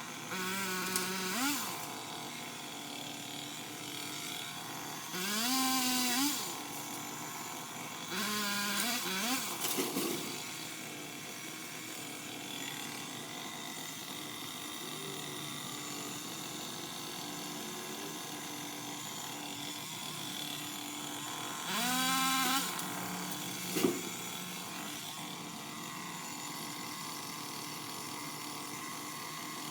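A small electric motor whirs up in four short bursts, its pitch rising quickly and then holding for a second or two each time, over a steady background hum.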